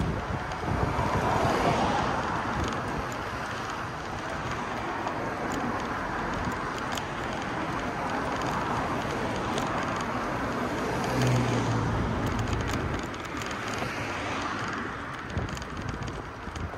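Road traffic: vehicles passing on a street, their noise swelling and fading, with wind on the microphone. A deeper engine hum comes in briefly about two-thirds of the way through.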